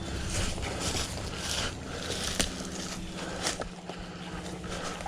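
Footsteps and rustling through leaf litter and brush, uneven and irregular, with a couple of sharp clicks near the middle.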